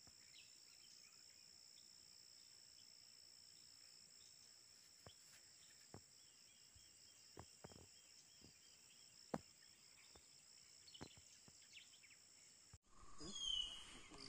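Faint forest ambience: a steady high-pitched insect chorus over a soft hiss, broken by a few scattered sharp snaps, the loudest about two-thirds of the way through. Near the end the sound changes abruptly and a short, loud high call rings out.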